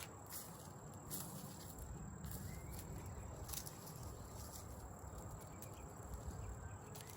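Faint rustling and scattered crackles from hands-on garden work, dead plant stalks and leaves being handled, over a steady low rumble.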